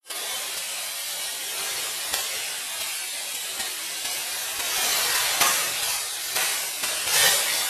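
Dry rice plants rustling and swishing as they are harvested: a steady crackly rustle, with louder, sharper swishes coming quickly one after another in the second half.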